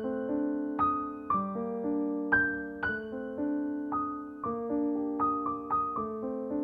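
Background piano music: notes and chords struck about twice a second, each ringing on and fading.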